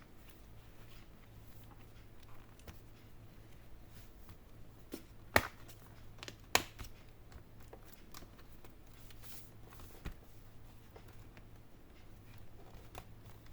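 Plastic handling and clicks as the HP 14s laptop's bottom case is pressed shut: two sharp snaps of its clips a little past the middle, about a second apart, and a lighter click a few seconds later, over soft rustling.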